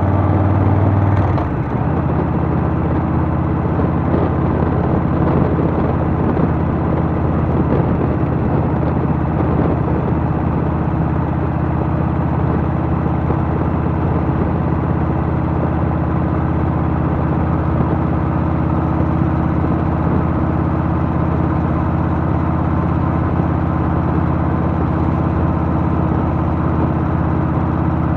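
Harley-Davidson Softail's Milwaukee-Eight V-twin engine running steadily while riding. The engine note changes about a second in, then holds steady.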